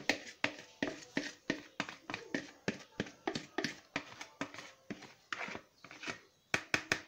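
Scraping and knocking on a plastic mixing bowl as cake batter is emptied from it into a round cake pan: quick, even strokes about three a second, then a few sharp knocks close together near the end.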